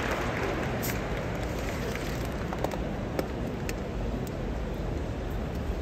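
The tail of stadium crowd applause dying away just after the start, leaving the steady murmur of a large crowd. A few short sharp taps come through in the middle.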